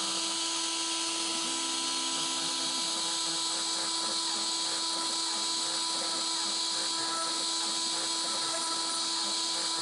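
CNC router spindle spinning a V-bit at a steady speed over plywood: an even, high whine with a strong hiss that holds without change.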